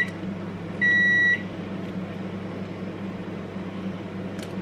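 An electronic appliance beeper sounding a long, even beep about a second in, just after another beep ends, over a steady low hum.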